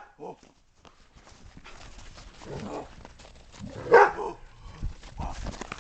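Greyhounds play-fighting, giving a short bark just after the start and a louder single bark about four seconds in, with a few dull thumps near the end.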